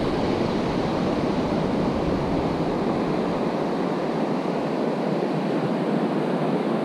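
Ocean surf breaking and washing up onto a sandy beach: a steady rush of noise.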